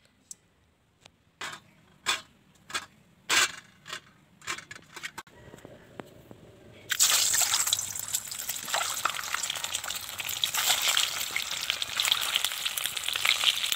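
Peeled boiled eggs frying in hot oil in an iron kadai. After a few seconds of scattered short crackles, a loud steady sizzle starts suddenly about seven seconds in, as the eggs meet the oil.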